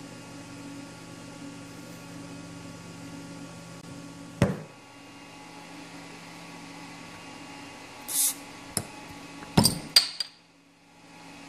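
A glass beer bottle's crown cap is pried off with a carbon fibre bottle opener: a short hiss of escaping gas, then a few sharp clinks as the cap comes free. A single thump comes earlier, over a steady background hum.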